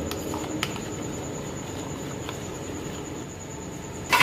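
A steel spoon stirring a cornflour slurry in a bowl, with a few faint light clicks against the bowl over a steady hiss and a faint high whine. Just before the end comes a sharp metallic clank that rings briefly.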